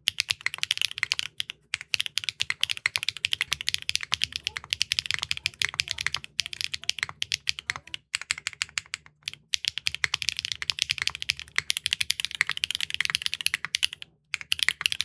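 Fast typing on a Neo65 Core Plus mechanical keyboard fitted with clacky Keygeek linear switches: a dense, continuous run of sharp keystroke clacks, broken by a few short pauses.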